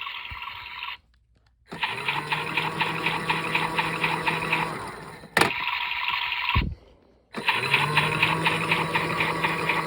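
Small battery-powered washing machine's motor whirring with a fast, even clicking, stopping dead twice for under a second and spinning back up each time, with a sharp click before the second stop; the machine sometimes gets stuck.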